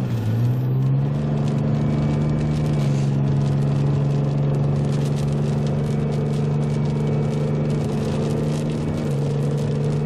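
Car engine running, heard from inside the cabin as the vehicle pulls away and drives; its note steps up about a second in and drops back near the end, as with gear changes.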